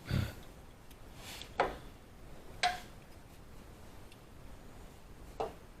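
A few separate sharp metallic clicks and knocks from hand tools being worked on a broken bolt, the first with a dull thud.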